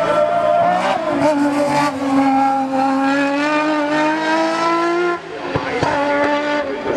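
Martini MK 69 single-seater racing car's engine at high revs. It shifts gear about a second in, then climbs steadily in pitch under full acceleration, and the level drops briefly about five seconds in before it carries on at a lower pitch.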